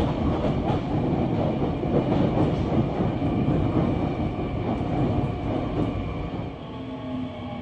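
Seoul Metro 2000-series subway train running on the rails, heard from inside the leading car: a steady rumble of wheels on track with rattling. It eases off near the end as the train slows into a station.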